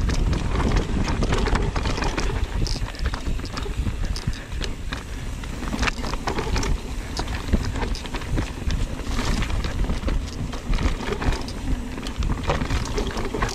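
Mountain bike descending a steep trail: tyres on dirt and rock, with frequent short clicks and rattles from the bike, over a steady rumble of wind on the microphone.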